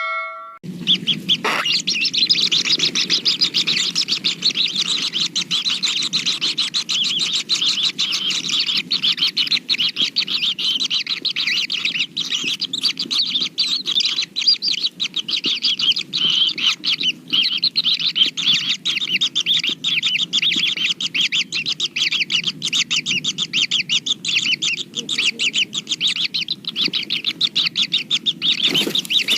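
Kingfisher birds at the nest, with rapid, dense chirping that never breaks, over a low steady rumble.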